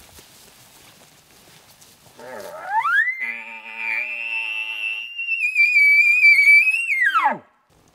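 Elk bugle: one long call that starts low about two seconds in and slides up into a high, held whistle. A lower, growly second tone sounds under the whistle for a while, and the call drops away sharply near the end.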